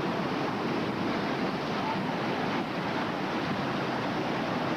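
Whitewater rapid rushing, a steady, even roar of churning river water.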